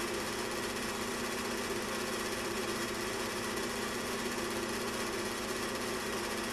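Film projector running: a steady mechanical whirr with a fast, even flutter.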